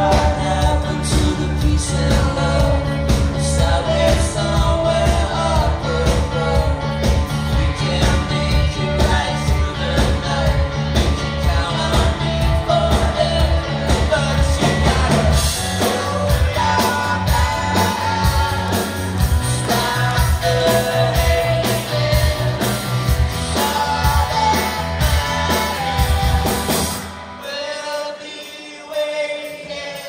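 Live rock band playing in a hall: electric guitar, bass guitar and drums with a singing voice. About three seconds before the end the drums and bass drop out, leaving a quieter stretch of guitar and voice.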